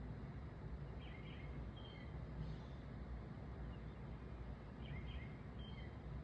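A small songbird calls the same short chirping phrase twice, about a second in and again about five seconds in, over a steady low outdoor background rumble.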